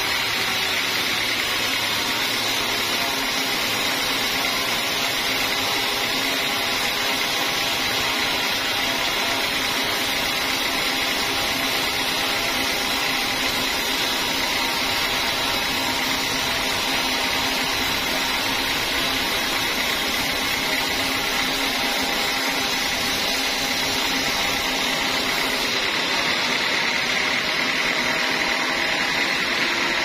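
Vertical band sawmill cutting lengthwise through a large teak log: the blade runs through the wood with a steady, even whine over a hiss of sawing.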